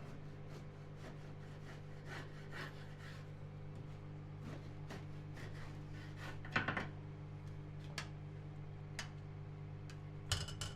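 Kitchen work sounds: scraping and rubbing strokes with scattered light knocks and clicks over a steady low hum, and a short clatter near the end.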